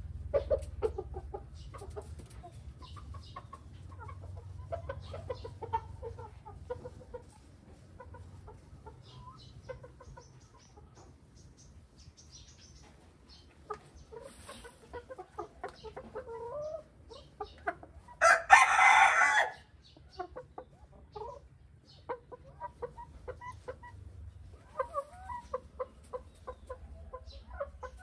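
Laying hens settled in nest boxes, clucking in short, irregular clucks throughout. About two-thirds of the way through there is one loud call lasting about a second.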